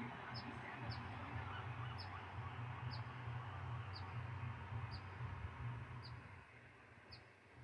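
A small bird repeating a single short, high chirp about once a second over the steady wash of ocean surf. A low rumble of wind and waves eases off near the end.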